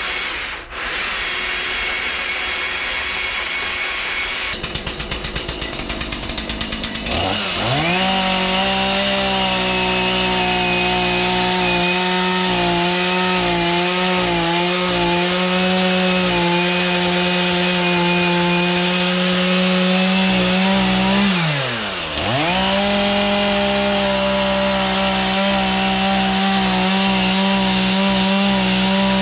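Two-stroke chainsaw ticking over at low speed, then opened up to full revs about seven seconds in and held there while cutting into wood, the pitch wavering as the chain bites. Near three quarters through the revs drop off briefly, then climb back to full speed.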